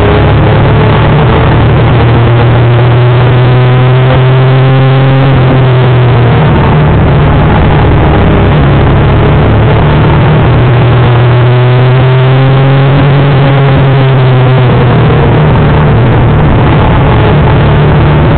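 Honda CBR250R (MC19) inline-four engine at high revs under race throttle, heard onboard the motorcycle along with heavy wind noise. The engine pitch climbs twice as the bike pulls through the gears. The whole thing is very loud.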